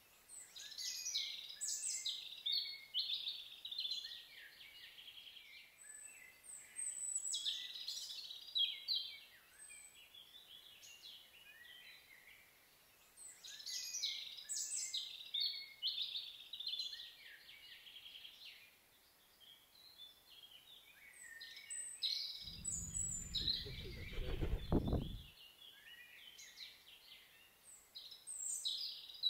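Songbirds singing in high, varied phrases of a few seconds each, with short pauses between them. A low rumble lasts about three seconds near the end.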